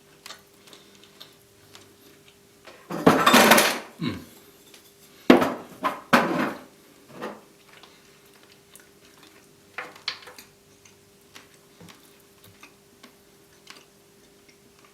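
Cutlery and dishes clattering against a plate during a meal: a longer noisy clatter about three seconds in, then a few sharp knocks and clinks.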